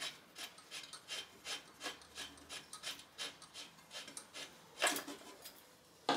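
A hand wrench works a fastener where the exhaust pipe meets the cylinder of a Pannonia motorcycle engine. It makes short, repeated metal-on-metal rasping strokes, about three a second, with the loudest stroke near the end.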